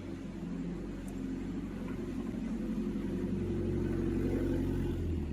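Double-head PVC seamless welding machine running: a steady low motor hum that grows gradually louder.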